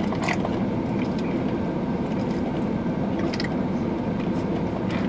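Steady low rumble of an idling car, heard inside the cabin, with a couple of faint sips through a straw.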